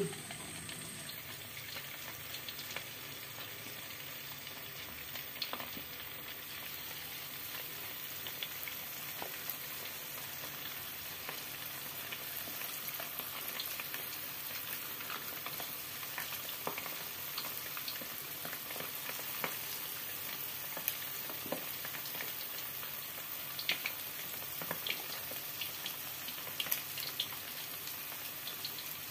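Chicken fillet pieces deep-frying in hot oil in a wok: a steady sizzle with scattered pops and crackles.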